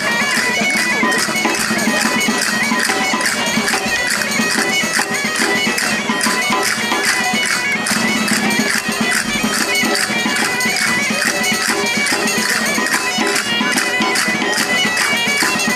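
Asturian bagpipe (gaita) playing a traditional tune over its steady drone, with a steady percussive beat.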